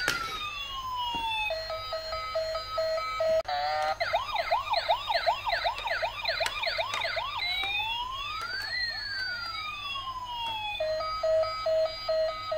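Battery-operated toy vehicle's electronic siren sound cycling through its patterns: a slow rising-and-falling wail, then a steady beeping tone, then a fast yelping siren of quick up-and-down sweeps about two a second, then the slow wail and the beeping again near the end.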